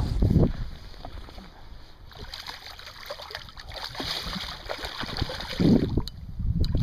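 Shallow river water splashing and lapping as a released salmon kelt is let go and swims off, with small scattered splashes. A couple of low thumps come near the start and about six seconds in.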